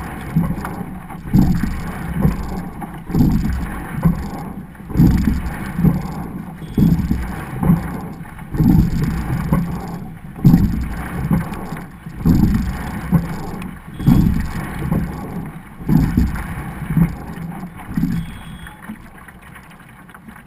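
Double rowing scull underway: water rushing past the hull, with a low surge on each stroke about every second and three-quarters, and wind on the microphone. The strokes fade out near the end.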